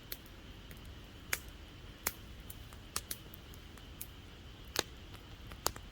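Wood fire crackling: irregular sharp pops and snaps, roughly one a second, over a low steady rumble.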